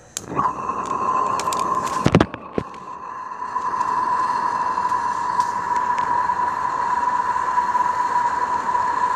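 Accucraft Eldrig 0-4-0 live-steam garden-railway locomotive hissing steam: a steady hiss with a whistle-like tone that starts just after the beginning and holds level. A few sharp knocks come about two seconds in.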